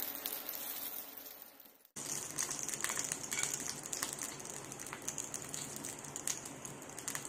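Hot cooking oil sizzling in a frying pan, with many small crackling pops. The sizzle starts abruptly about two seconds in, after a short fade to quiet.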